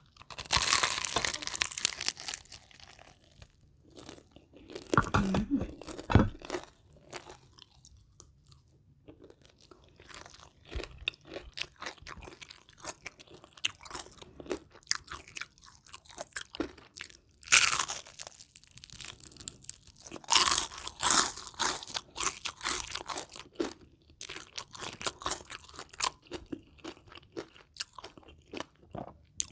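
Close-up eating sounds: crunching bites of crisp food, with quieter chewing between. The loudest crunches come in clusters: near the start, again at about 17 seconds, and around 20 to 22 seconds.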